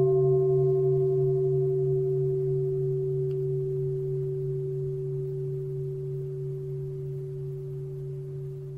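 Bowl bell ringing out after a single strike: a low wavering hum with clearer higher tones above it, slowly fading, the highest tones dying away first.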